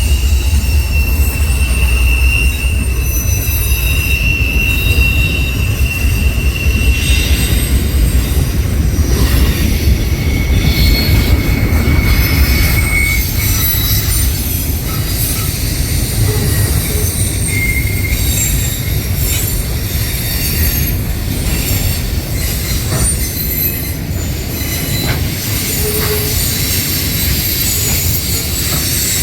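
A train rolling past with its steel wheels squealing on the rails over a continuous low rumble. A high, steady squeal holds for the first several seconds, comes back for a few seconds around the middle and briefly again a little later.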